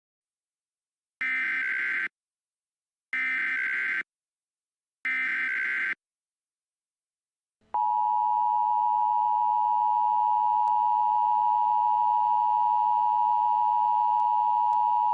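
Emergency Alert System SAME header: three short bursts of screechy digital data, about a second apart. About two seconds later comes the long, steady EAS attention tone that announces a warning about to be read.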